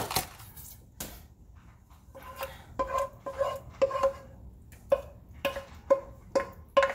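A wooden spoon scraping and knocking against a pot as meat sauce is scooped out. From about two seconds in the knocks come about two to three a second, each leaving a short ringing tone.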